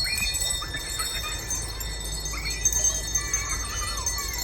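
Several small hand-held bells being shaken and rung by children and a teacher at once, a steady mix of overlapping high ringing tones.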